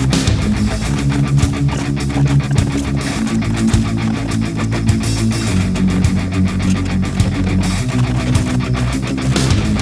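Background music: a rock track with distorted electric guitar and bass.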